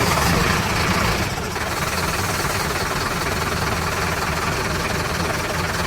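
Engine sound effect of a cartoon vehicle running steadily, a little louder in the first second or so.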